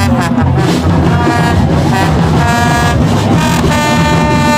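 Horns blowing a series of long held notes of differing pitch, over a steady low rumble.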